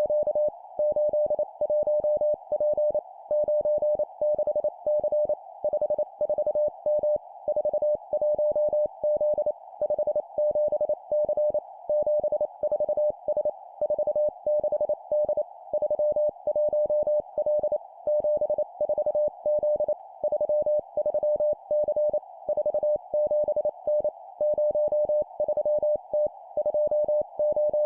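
Morse code (CW) sent at 25 words per minute: a single steady mid-pitched tone keyed rapidly on and off in dots and dashes, in three-character groups of two numbers and a letter with short pauses between groups, over a narrow band of receiver-like hiss.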